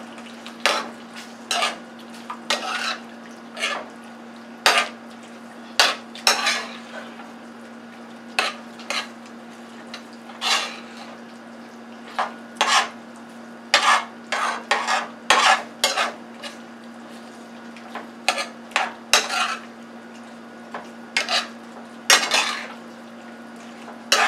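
A metal spoon scraping and clinking against a metal skillet while steak, peppers and onions are stirred in gravy, in irregular strokes about once a second, over a faint steady hum.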